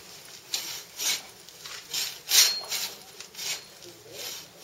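Hand bow saw cutting through the fresh trunk of a live Christmas tree: uneven rasping strokes of the blade, a little under two a second. The green trunk is full of sap, which makes the blade grab.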